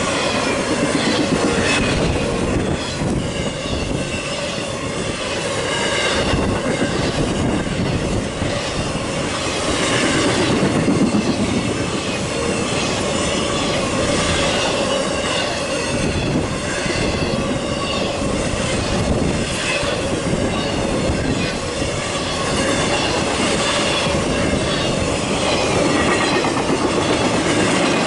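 Norfolk Southern intermodal freight cars rolling past close by: a steady rumble of wheels on rail, with repeated clacks over the rail joints and metallic flange squeal coming and going.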